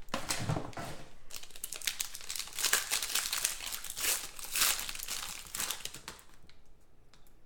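Foil wrapper of a Panini Spectra basketball card pack crinkling and tearing as it is ripped open by hand, dying down about six seconds in.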